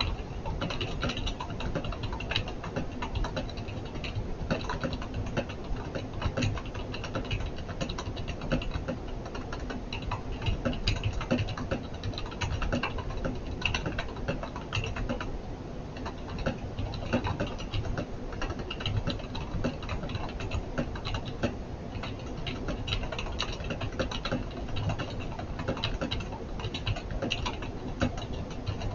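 Continuous typing on an Advent K112 rubber-dome keyboard: a dense run of clicks as the keycaps bottom out against the plastic case, picked up by a cheap webcam microphone.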